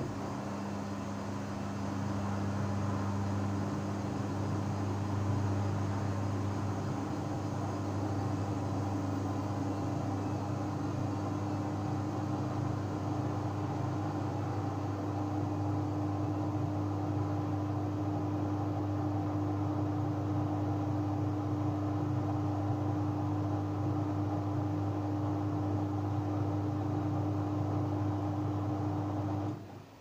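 Samsung WW70J44A3MW front-loading washing machine spinning at 400 rpm: a steady hum from the Digital Inverter motor and drum, with a few steady tones in it. It cuts off suddenly near the end.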